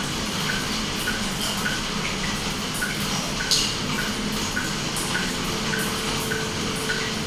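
Aquarium water bubbling as a stream of air bubbles rises through the tank, over a steady hum, with a light tick repeating about twice a second and a few small splashes.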